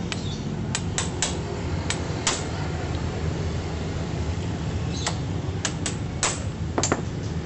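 Metal hand tools clinking and tapping against a motorcycle engine case: about a dozen short, sharp clicks at irregular times, bunched in the first couple of seconds and again near the end, over a steady low hum.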